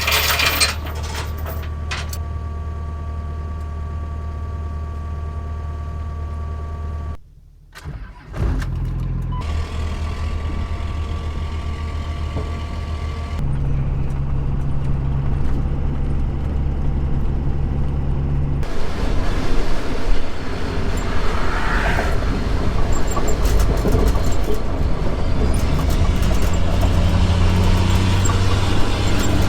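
A vehicle engine running steadily, cut off sharply about seven seconds in, then running again. About thirteen seconds in it steps up in pitch, and through the second half a rising rush of noise from travel and wind builds over it.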